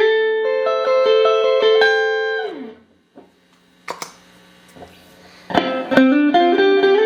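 Clean electric guitar (Stratocaster) played through a Boss RV-6 reverb pedal into two Roland JC-120 amps: a run of picked notes ending in a downward slide about two and a half seconds in. Then a few seconds of quiet amp hum with a sharp click, and the picking starts again.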